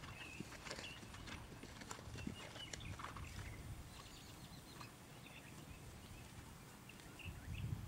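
Faint hoofbeats of a chestnut Thoroughbred gelding trotting under saddle on grass and dirt. A low rumble grows near the end.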